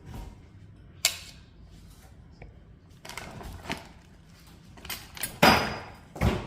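Kitchen handling noises: a series of short clatters, knocks and scraping rasps, the loudest a half-second rasp about five and a half seconds in.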